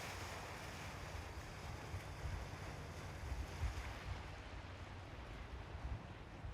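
Gentle sea waves washing on the shore, a soft hiss that swells near the start and slowly fades, with wind gusting on the microphone.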